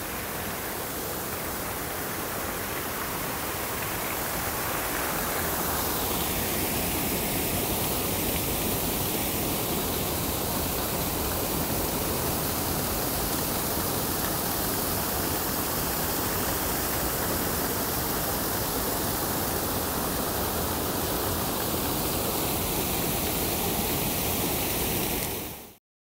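Pond outlet waterfall running high after heavy rain: a loud, steady rush of falling water that swells a little a few seconds in and cuts off suddenly near the end.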